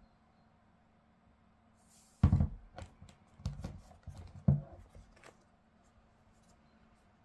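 Handling noise as a basketball shoe is picked up and turned over on a table: a loud thump about two seconds in, two more knocks over the next two seconds, and scattered light clicks and rustles, over a faint steady hum.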